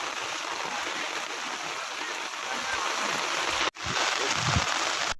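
Rushing water, a dense steady hiss of heavy rain or flowing floodwater. It breaks off for an instant a little after three and a half seconds in, then resumes and cuts off abruptly at the end.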